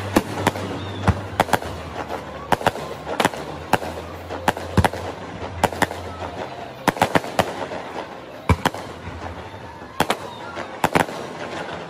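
Aerial fireworks display: shells bursting in an irregular run of sharp bangs, about two a second, over a steady background hiss.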